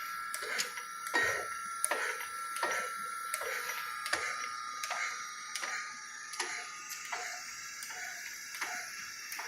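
Kent SGS-1020AH automatic hydraulic surface grinder running: a steady whine with a click about every three-quarters of a second.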